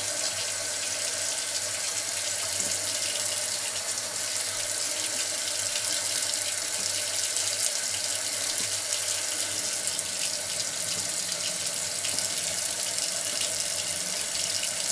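Water tap running steadily into a sink.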